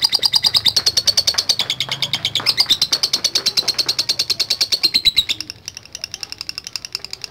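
Lovebird's ngekek: a long, rapid, high-pitched chattering trill of evenly repeated notes. It drops to a quieter chatter about five seconds in.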